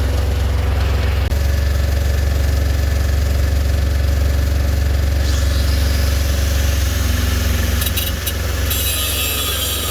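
Semi truck's auxiliary power unit (APU) engine running steadily with a heavy low hum. Near the end a harsh high-pitched hiss joins as the angle grinder starts cutting into the steel shock mount.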